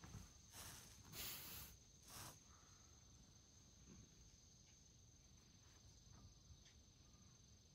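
Near silence: quiet room tone with a faint steady high-pitched tone throughout, and a few brief soft rustles in the first two seconds or so.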